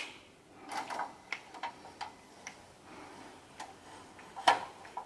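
Horizontal window blinds being tilted open, the slats and tilt mechanism giving a string of soft, irregular clicks and rattles, with a sharper click about four and a half seconds in.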